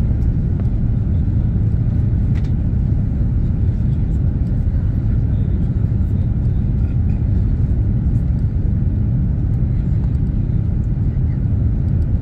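Steady low rumble of engine and airflow noise in the passenger cabin of an Airbus A330-200 on final approach to landing.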